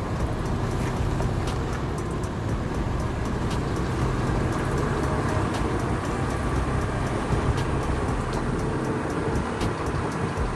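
Vehicle driving on a rough road, heard from inside: a steady low rumble of engine and tyres, with scattered rattles and knocks.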